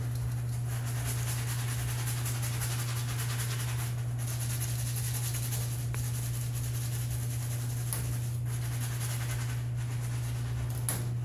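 Tap water running steadily from a faucet into a stainless steel scrub sink, with the soft scratching of a surgical scrub brush working over soapy, Betadine-lathered hands, over a low steady hum.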